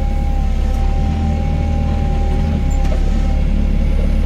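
Doosan DX55 mini excavator's engine running steadily under load, a constant low rumble, with a thin steady whine over it that stops about three seconds in.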